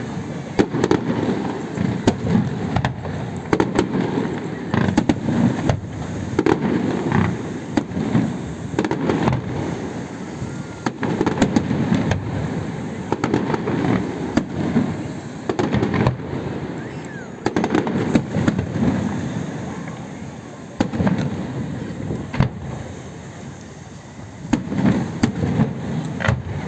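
Aerial fireworks display going off: a dense run of sharp bangs and crackling bursts, one after another, easing a little for a few seconds near the end before picking up again.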